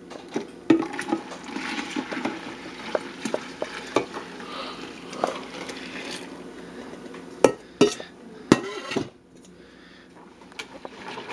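Cream mixture pouring from a stainless steel bowl into a stainless steel stockpot of whisked egg yolks and sugar. Near the end come three sharp metal clanks of the metal bowl and pot.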